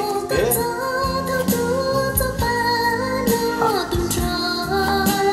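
Music with a woman singing a melody over held, steady accompaniment.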